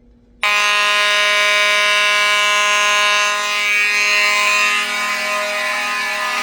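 Fire alarm horns, Edwards 892 and 7002T signals, switching on suddenly about half a second in after a manual pull station is pulled. They then sound continuously, a steady, loud, buzzing blare of several tones together.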